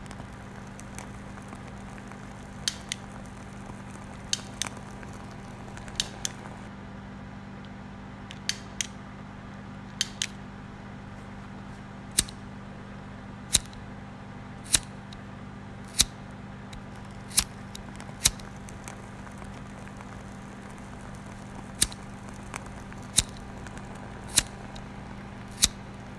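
Sharp, single clicks over a steady low hum. The clicks come irregularly at first, then about once every second and a quarter in the second half.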